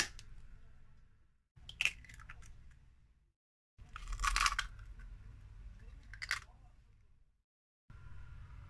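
Two hen's eggs being cracked by hand over a glass mixing bowl: a few short crunchy cracks of eggshell, the loudest about four seconds in.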